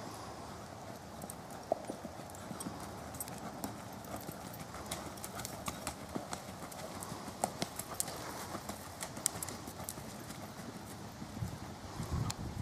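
Tennessee Walking Horse's hooves striking the ground as it is ridden at a brisk gait: a quick, uneven patter of hoofbeats, with a few heavier thumps near the end.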